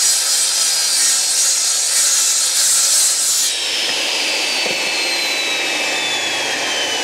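Elu sliding mitre saw cutting through a wooden beam for about three and a half seconds. The blade then clears the wood and winds down, with a whine that falls steadily in pitch.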